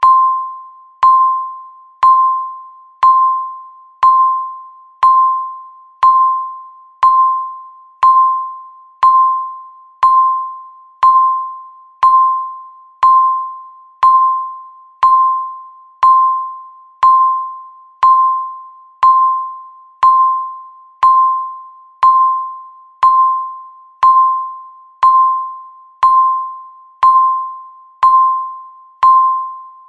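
Countdown timer beeping once every second, marking each second left. Each beep is a single clear tone that starts sharply and fades away before the next, repeating evenly.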